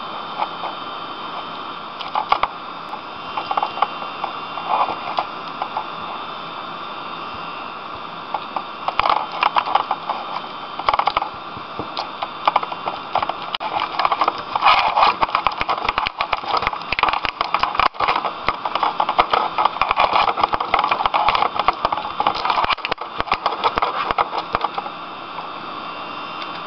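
Rapid, irregular clicking and rattling of a computer mouse being handled on a desk, over a steady hiss. The clicks are sparse at first, come thick and fast through most of the middle, and thin out near the end.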